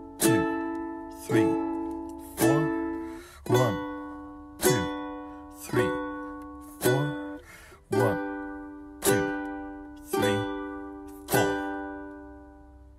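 Ukulele strummed in even quarter notes, a little over a second apart, each chord left to ring. It plays the end of a I–V–vi–IV pop progression in D: A, then the barre chord B minor, then G, with the last G strum ringing out.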